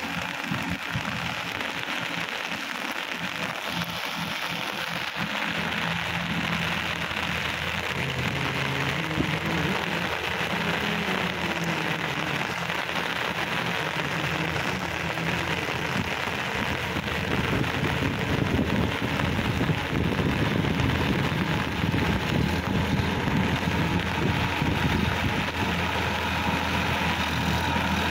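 Steady rain falling on a wet field, with a Sonalika DI-50 tractor's diesel engine running under load as it pulls a tillage implement. The engine grows louder in the second half as the tractor comes closer.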